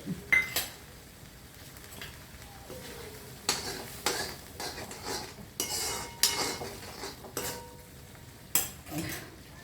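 A metal spoon stirring in a cooking pot, scraping and knocking against its sides several times with brief metallic rings. The tomato has just gone into the dal.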